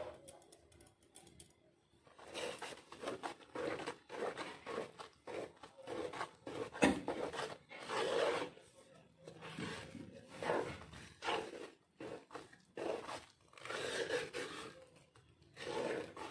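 Scraping and crunching strokes, repeated irregularly about once a second after a quiet first two seconds, from a coarse pitha filling of ground nuts, sesame, coconut, sugar and jaggery being mixed by hand in a kitchen vessel.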